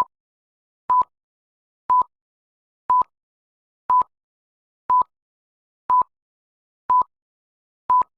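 Electronic countdown beeps, one short beep at a single pitch every second, nine in all, marking off a ten-second thinking time with silence between the beeps.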